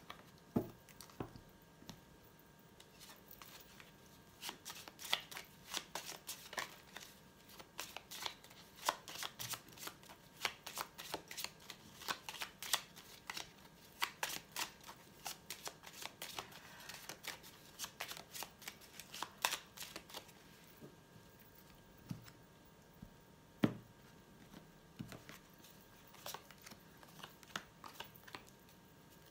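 A deck of oracle cards being shuffled by hand: a long run of quick riffling clicks, followed by a few separate taps and soft knocks near the end as cards and decks are set down on a cloth-covered table.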